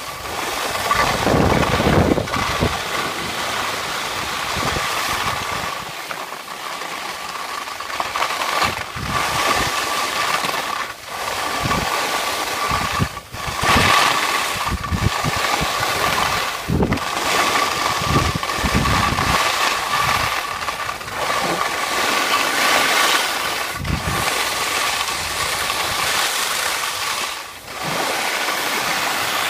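Wind buffeting the phone's microphone and skis hissing over groomed snow on a downhill run, in uneven gusts, with a steady high whine underneath.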